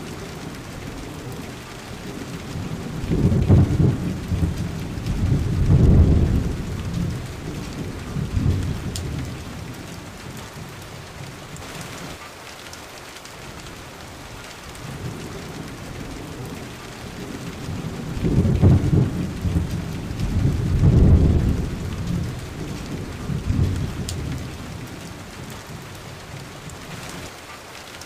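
Steady rain with two long rolls of low thunder, one a few seconds in and another about two-thirds of the way through, each swelling in several peaks before fading back into the rain.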